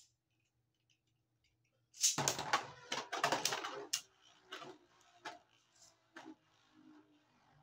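Beyblade Burst spinning tops launched into a plastic stadium: a loud burst of dense rattling and clattering about two seconds in as they land and collide, then separate knocks as they spin and strike each other and the stadium wall.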